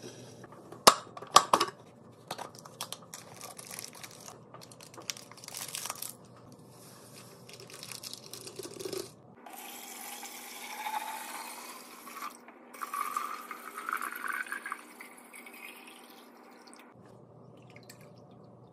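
Glass and plastic containers being handled and set down with several sharp clicks and knocks. Then liquid is poured into a container, with a faint rising tone as it fills.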